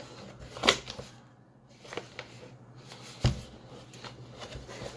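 Cardboard packaging handled by hand: rustling and scraping as a figure's box is opened and the plain inner cardboard box is slid out, with a few sharp clicks and one louder knock about three seconds in.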